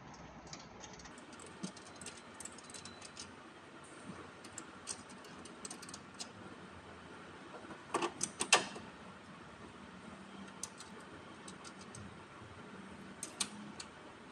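Scattered small metallic clicks and rattles of battery cables being fitted to a hybrid inverter's battery terminals by hand, with a quick cluster of louder clicks about eight seconds in and another pair near the end.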